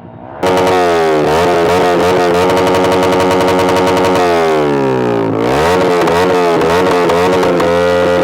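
Motorcycle engine through a Pro Liner muffler with the dB killer removed, revved hard about half a second in and held at high revs. The revs drop briefly around five seconds in, then climb and hold high again. Very loud.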